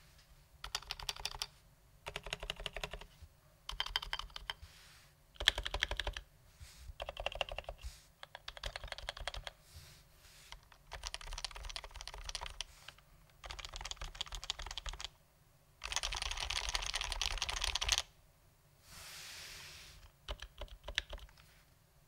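Typing on a stock, unlubricated HHKB Pro 2 keyboard with Topre switches: fast runs of keystrokes in bursts of a second or two, separated by short pauses, with one longer unbroken run about two-thirds of the way through.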